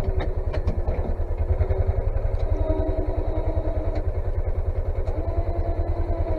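Engine running steadily with a fast, even pulsing beat.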